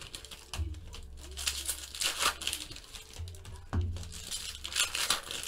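Foil wrapper of a trading-card pack crinkling and tearing as it is pulled open and the cards are handled, in a few short rustling bursts.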